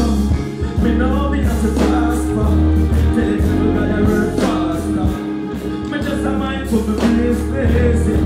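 A dancehall backing track with heavy bass plays through a concert PA while a male artist chants and sings into a microphone over it. The bass drops out briefly about five seconds in.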